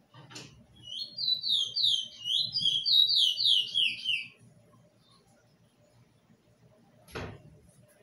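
A songbird sings one song phrase of rapidly repeated slurred notes that each drop in pitch, the whole phrase falling lower toward its end, lasting about three and a half seconds. A short knock comes just before the song and another near the end.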